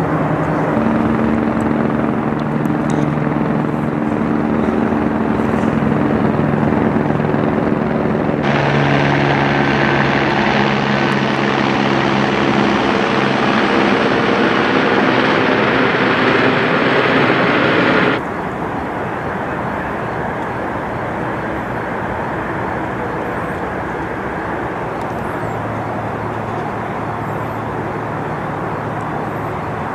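Steady engine drone with a low, even hum. About a third of the way in, a louder hiss starts abruptly, and about ten seconds later it cuts off just as suddenly.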